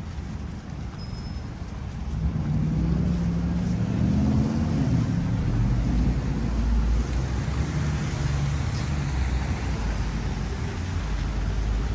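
Street traffic, with a motor vehicle's engine passing close by. It gets louder about two seconds in and keeps a low, wavering engine note under a steady rumble.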